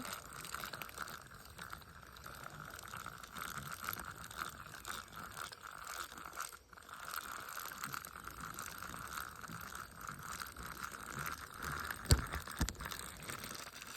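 Zebco push-button spincast reel being cranked steadily to retrieve a lure, a continuous mechanical whirring with a short pause about halfway through. A sharp knock comes near the end.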